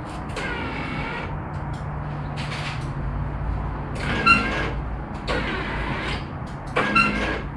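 About five high-pitched metal squeals, each lasting a half-second to a second and wavering in pitch, the loudest about four and seven seconds in, over a steady low engine hum.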